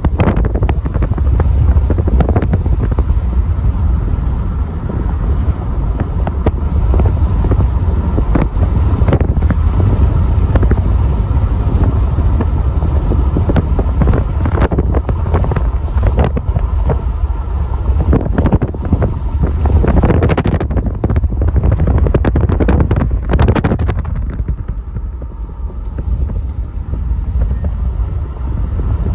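Car driving along a highway: steady low road rumble with wind buffeting the microphone and scattered knocks, easing a little near the end.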